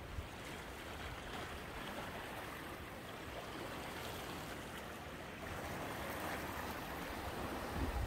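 Small sea waves washing among the rocks of a rocky shore: a steady wash of water that swells slightly in the second half.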